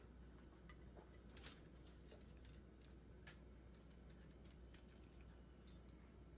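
Near silence: room tone with a low hum and a few faint clicks, one about a second and a half in and another near the end.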